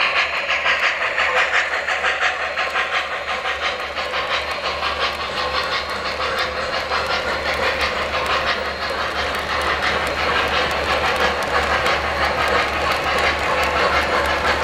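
O-gauge model Norfolk & Western J-class steam locomotive and its passenger cars rolling past: a fast, even run of wheel clicks on the track over a hiss, with the hiss strongest in the first couple of seconds as the locomotive goes by, then the cars' clicking.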